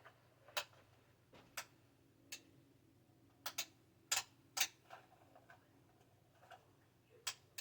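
About eight short, sharp clicks or taps at irregular intervals, several close together in the middle, over a faint steady low hum.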